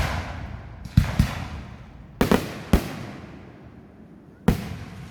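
Fireworks exploding: about six sharp bangs, some in quick pairs, each trailing off in a rumbling echo.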